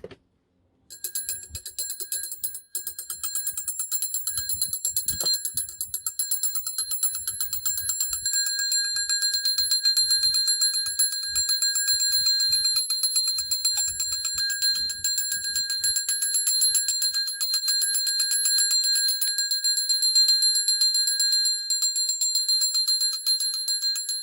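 Antique electric fire alarm bell ringing continuously, its clapper striking the gong in a rapid, even rattle; it starts about a second in. The bell has been restored to working order, with its wiring and faulty 24-volt resistor seen to.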